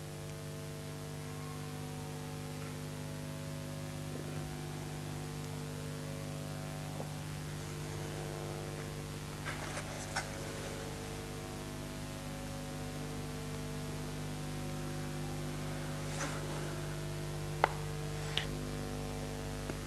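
Steady electrical hum over a background hiss. A few faint, light clicks and scrapes, about ten seconds in and again near the end, come from a small sculpting tool working the soft paste of a mask face.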